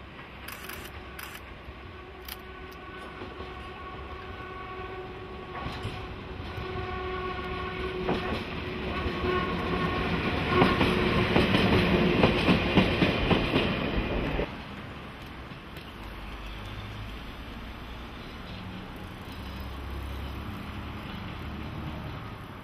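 DE10 diesel-hydraulic locomotive and Maya 34 track inspection car approaching and passing close by: an engine drone with steady tones grows louder, then the wheels click over the rail joints as the cars go past. The sound cuts off abruptly about two-thirds of the way through, leaving a quieter, more distant train rumble.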